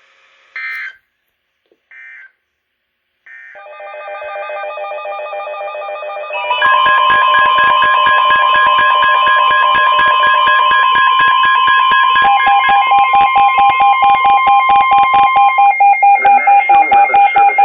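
Weather radio alert signalling: three short data bursts about a second apart, the end-of-message code, then layered electronic alert tones. About six seconds in they jump in loudness into a receiver's rapidly pulsing alarm under a long steady warning tone, which stops a couple of seconds before the end while the pulsing alarm continues.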